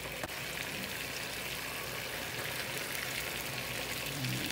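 Soy-seasoned broth with chicken, onion and shiitake at a steady boil in a frying pan: an even bubbling, crackling sizzle.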